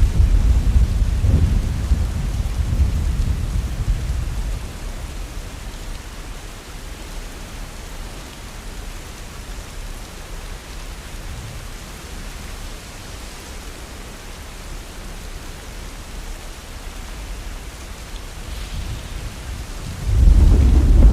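Steady rain with thunder: a low rumble at the start dies away over the first four seconds or so, leaving the rain alone, and a second rumble of thunder sets in suddenly near the end.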